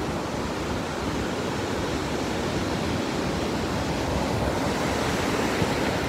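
Steady rushing noise of ocean surf and wind.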